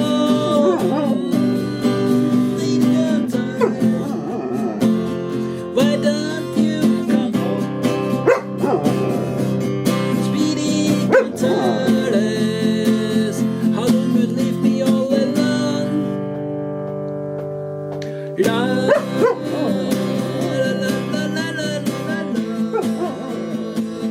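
White Swiss Shepherd dog howling along to a strummed acoustic guitar, its howls gliding up and down in pitch over the chords. The howling pauses for a couple of seconds past the middle while a chord rings on, then resumes.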